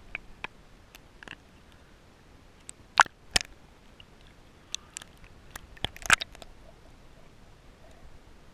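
Scattered sharp clicks and taps, about a dozen, picked up through an underwater camera's waterproof housing as it moves in the sea and breaks the surface. The loudest comes about three seconds in, with a quick cluster around six seconds.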